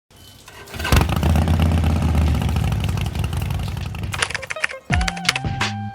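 Harley-Davidson Forty-Eight's V-twin engine starting about a second in and running steadily for a few seconds. Near the end, electronic music with a heavy beat and falling sweeps takes over.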